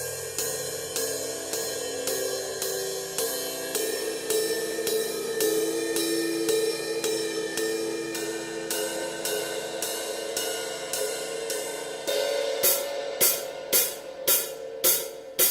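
Drum-kit cymbals from a set of Paiste and Zildjian S crashes, ride, splash and hi-hats, struck steadily about twice a second so that their ringing builds into a sustained shimmer. About twelve seconds in, this gives way to louder, separate strikes, each ringing out briefly.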